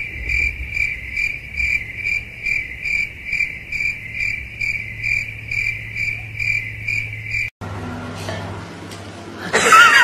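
Cricket chirping: an even, high-pitched chirp repeating about two and a half times a second, which cuts off abruptly about three-quarters of the way through. A brief louder sound follows near the end.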